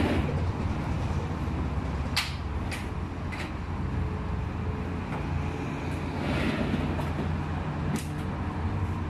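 A vehicle engine running steadily with a low hum, with a few sharp clicks or knocks, three of them between about two and three and a half seconds in and another near eight seconds.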